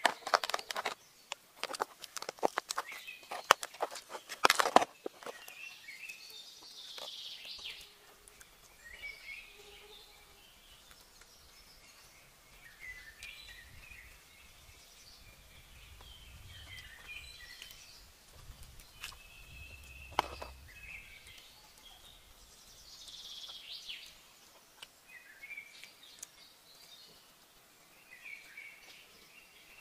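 Crisp roast chicken being torn apart by hand on palm leaves: a quick run of sharp crackles and snaps through the first five seconds. After that, birds chirp on and off over quiet outdoor background, with a single louder click about twenty seconds in.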